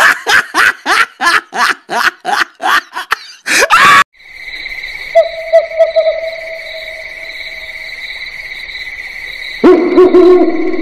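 Rapid rhythmic bursts of a person's voice, cut off suddenly about four seconds in. Then a steady high cricket trill, with a short owl hoot about a second later and a louder hooting starting near the end.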